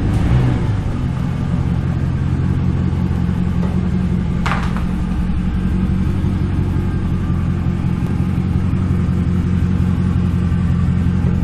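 Car engine running at a steady idle with its mufflers cut off, the open exhaust sounding even and low throughout. A brief high-pitched chirp comes about four and a half seconds in.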